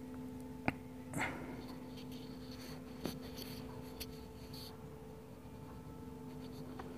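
Quiet room tone with a faint steady hum and a few soft clicks and taps from handling the phone while editing on it, the sharpest click about two-thirds of a second in.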